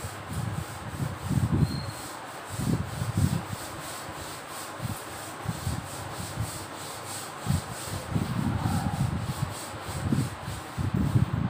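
Chalkboard duster wiping chalk off a chalkboard: a run of irregular rubbing strokes, a second or less apart.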